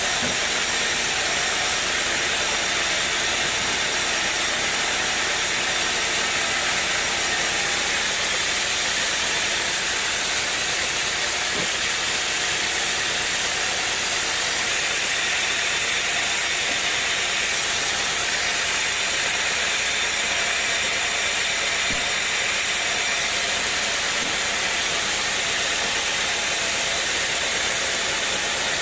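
Sawmill machinery running: a steady, even hissing machine noise that does not change.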